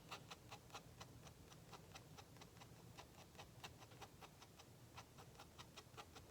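Pen hatching short lines on drawing paper: faint, quick ticks, about five or six a second.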